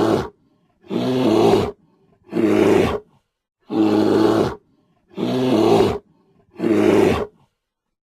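Grizzly bear roaring: six roars about a second long each, evenly spaced, stopping shortly before the end.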